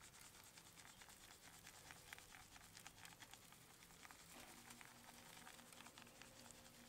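Faint pattering and ticking of dry rub granules shaken from a plastic shaker bottle onto raw chicken thighs and a wire rack. About four seconds in, a faint steady buzz begins, which the cook takes for a fly.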